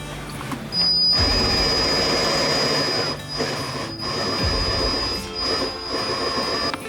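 A power tool running with a steady high whine and a rushing noise beneath it. It starts about a second in, dips briefly a few times, and stops just before the end. Music plays underneath.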